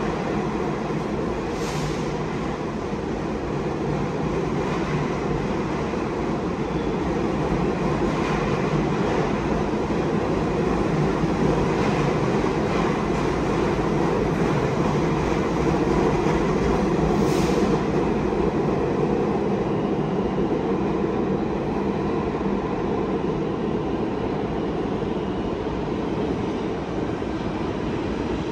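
R68A New York City subway train running through a station at speed without stopping: a steady, loud rumble of wheels on rail, with a couple of brief sharp clicks.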